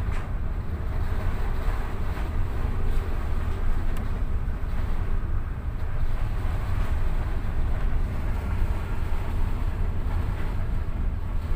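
Wind buffeting the microphone over a rough, breaking sea, a steady heavy rumble with a rushing hiss above it.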